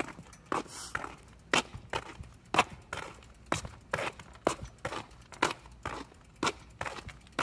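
Footsteps of a person walking on asphalt, sharp clicking steps at an even pace of about two a second.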